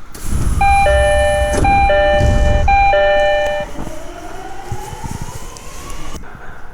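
Door chime of a Tokyo Waterfront Area Rapid Transit 70-000 series train car: a two-note chime, high then lower, sounding three times about a second apart over a low rumble. A rising whine follows and cuts off shortly before the end.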